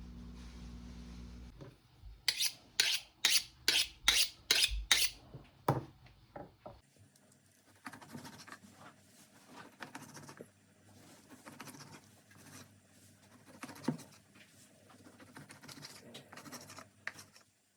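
Kitchen food preparation: a low hum, then a run of about eight sharp, evenly spaced knocks, followed by quieter scratching and rubbing.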